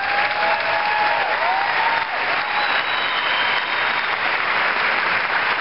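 Large crowd applauding steadily, with a few voices calling out over the clapping in the first two seconds.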